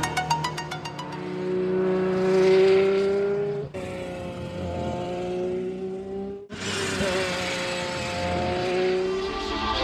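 Hypercar engine running at high revs on a race track, its pitch holding steady with slight rises and falls. The sound breaks off abruptly twice, about a third and two thirds of the way through, and resumes each time.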